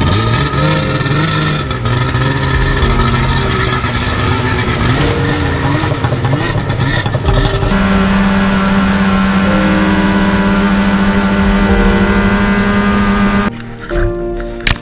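Polaris RMK snowmobile's two-stroke engine revving up and down as it pulls away, then running at a steady high speed while riding across the snow. Near the end the engine sound cuts off abruptly.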